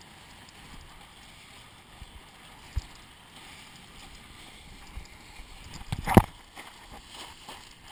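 Kiteboard skimming across choppy water, heard through an action camera: a steady rush of water and wind with a few knocks of chop against the board, the loudest a splash about six seconds in.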